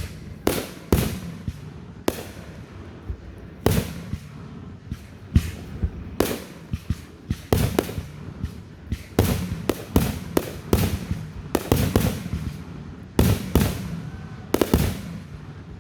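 A 125-shot fireworks cake (repeater) firing, a string of sharp bangs at about one to two a second, some in quick pairs.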